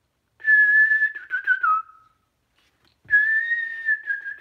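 Two whistled phrases of a tune, each a held high note that dips lower at its end, with a soft bump as the second begins.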